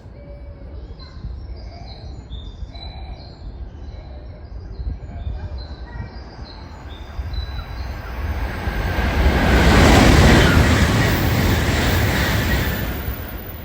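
A Shinkansen bullet train approaching and passing, its rush building from about six seconds in, loudest about ten seconds in, then fading. Short bird chirps come in the first half.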